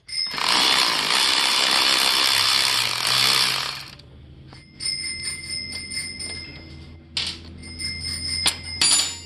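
Cordless power ratchet running for about three and a half seconds as it spins a cylinder head nut off a Kawasaki KX85's two-stroke engine. After it stops, the loosened nut and socket clink and ring against metal several times.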